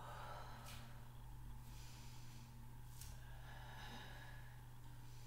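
A woman's faint breathing while she holds a stretch: a few soft breaths over a steady low hum.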